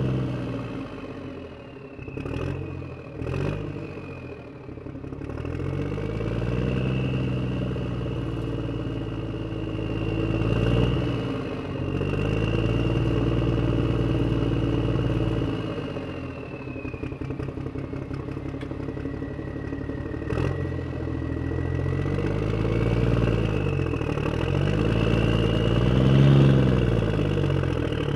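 Huina remote-control toy excavator running: a low engine-like drone with a higher motor whine that rises and falls as it tracks and swings its upper body, with a few sharp plastic clicks about two to three seconds in and again about twenty seconds in.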